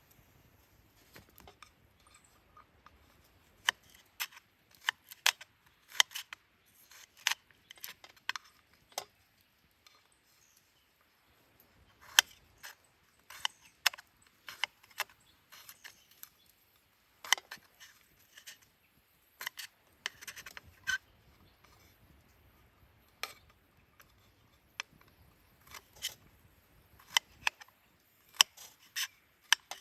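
Irregular sharp clicks, clinks and short rustles of small objects being handled close up, in uneven clusters with brief pauses between.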